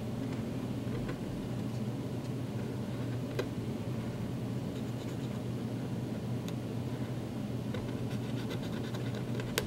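Felt tip of a black Sharpie permanent marker scratching on paper as it inks and fills in a drawing, over a steady low hum.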